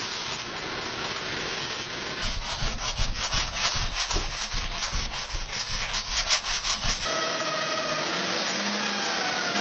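Rhythmic hand-sanding strokes on a steel knife blade, about three a second, preceded by a steady abrasive hiss; about seven seconds in, a small electric power tool starts with a steady whine.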